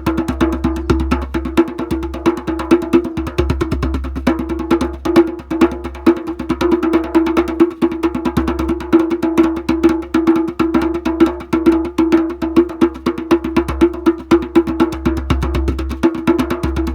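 A large drum struck in a fast, continuous roll, about ten strokes a second, with a steady ringing tone under the strokes.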